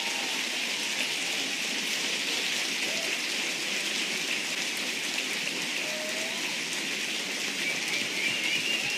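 Large audience applauding steadily, with a few voices cheering through the clapping.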